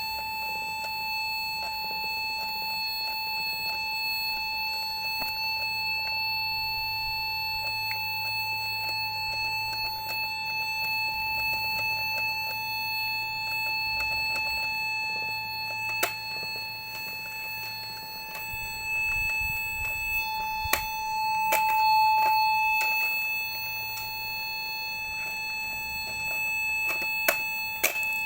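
Toy cash register giving off one unbroken electronic beep tone, with a few sharp clicks near the middle and end. The owners take the odd sound for a fault: the toy is broken, one of its buttons snapped.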